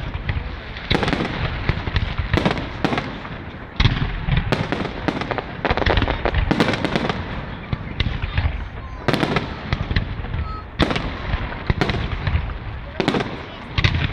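Aerial fireworks display: shells bursting in quick succession, a sharp bang about every second or less, with crackling between the bursts.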